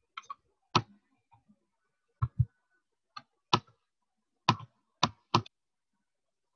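Computer mouse clicking, about nine sharp clicks at irregular spacing, some in quick pairs.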